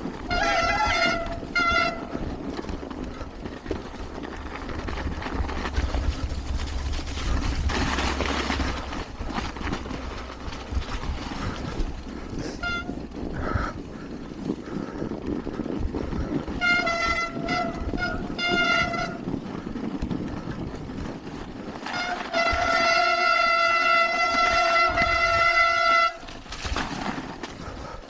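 Mountain bike brakes squealing with a steady high-pitched tone: a few short squeals near the start and in the middle, then one long squeal of about four seconds near the end, over the steady rumble of riding noise.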